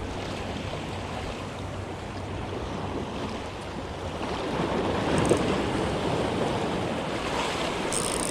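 Ocean surf washing against rocks, swelling louder about halfway through.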